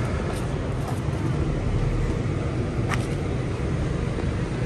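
Honda Civic's engine idling, a steady low rumble from the exhaust, with a sharp click about three seconds in.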